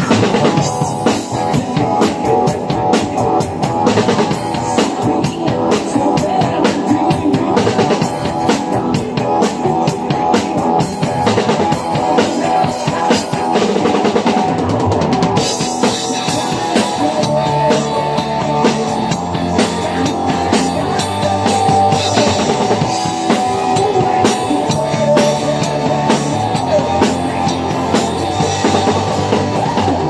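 Acoustic drum kit played in a rock groove, with kick, snare and cymbal strikes over a rock song with bass and guitar. The cymbals get brighter and more washy about halfway through.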